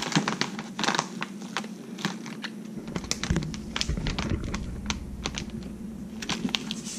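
Irregular light clicks, taps and crinkles of a plastic vacuum-sealer bag being handled and lined up in a countertop vacuum sealer.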